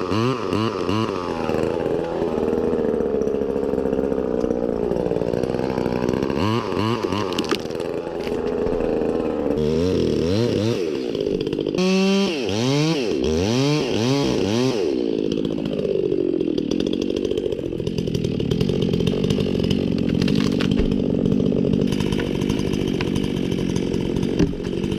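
Chainsaw running and cutting, its engine revving up and dropping back again and again.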